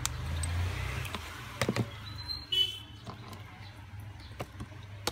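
Small clicks and taps of a precision screwdriver and the Honor 10 Lite's frame being handled, over a low steady rumble, with a short high squeak about two and a half seconds in.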